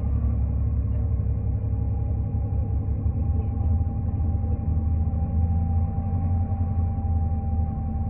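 Low, steady rumble of a 2005 New Flyer D40LF diesel bus heard from inside the cabin while riding, with a faint steady whine on top.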